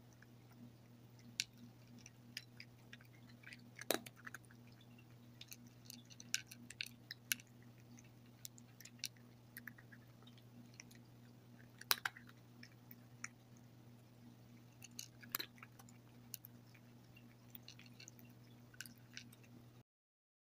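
A cat chewing crunchy dry kibble: irregular crisp crunches and clicks, a few much louder than the rest, over a low steady hum. The sound cuts off suddenly near the end.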